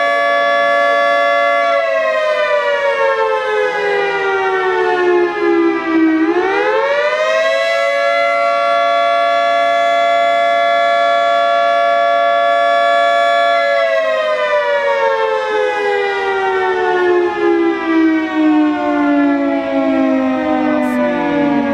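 Federal Signal 2T22 dual-tone rotating warning siren sounding its attack signal. A steady two-tone chord winds down, climbs back up and holds, then winds down again.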